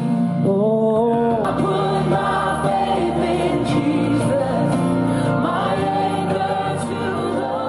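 A man singing a slow gospel worship song along with backing worship music.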